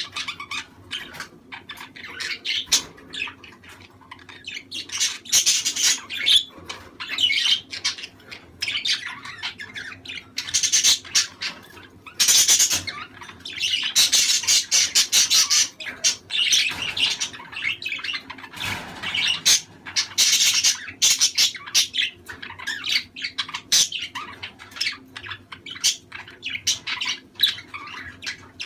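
Budgerigars chattering: a flock's dense, continuous chirping, warbling and squawking, in louder bouts every few seconds.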